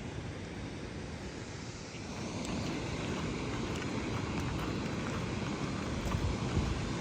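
Waterfall rushing in a steady roar that grows slightly louder about two seconds in.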